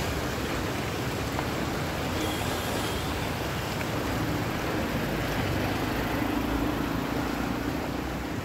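Cars and an auto-rickshaw driving slowly through a flooded road, engines running and tyres churning through the water in a steady wash of noise.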